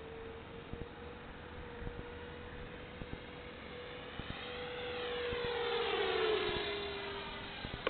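Electric ducted fans of a radio-controlled Me 262 jet whining steadily in flight. About five seconds in, the plane passes close: the whine grows louder, then drops in pitch as it goes by.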